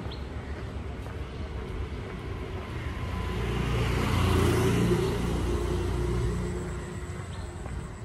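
A motor vehicle passing along the street: a low rumble that grows louder to a peak about halfway through, then fades away.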